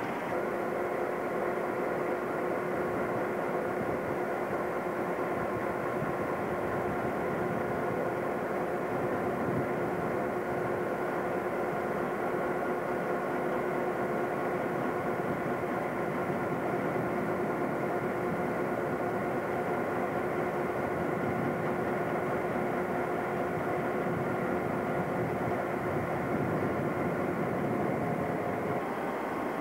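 Diesel locomotive engines running steadily: a constant mechanical rumble with several held humming tones that barely change.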